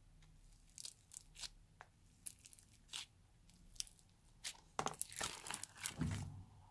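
Foam-bead slime (floam) crackling and popping as fingers press into it in a plastic tray. Scattered crackles come first, then a dense run of crackling near the end as the slab is pulled out of the tray.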